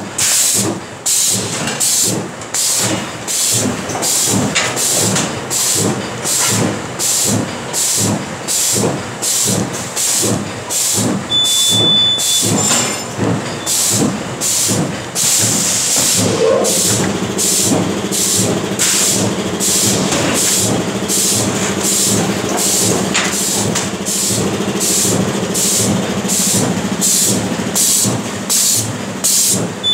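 Fully automatic six-track T-shirt bag making machine running. Its pneumatic cylinders hiss out air in short, regular bursts, about two a second, as the machine cycles. A steady motor hum joins about halfway through.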